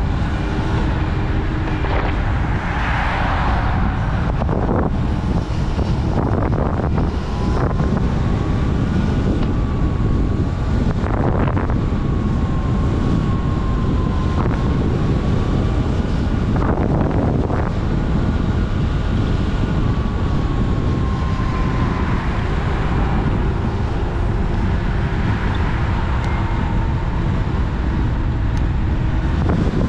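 Wind rushing steadily over an action camera's microphone while riding along a road, with a faint whine that drifts up and down in pitch and a few short knocks.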